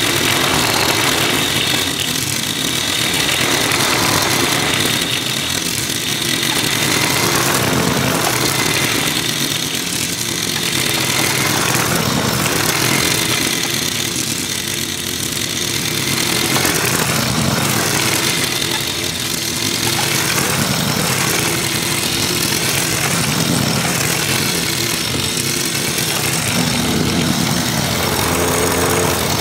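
Walk-behind gasoline lawn mower engine running steadily under load while cutting grass, its sound rising and falling every few seconds as it is pushed toward and away.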